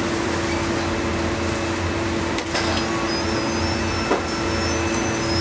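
Steady machine hum with a constant low tone, with a couple of light knocks about two and a half and four seconds in.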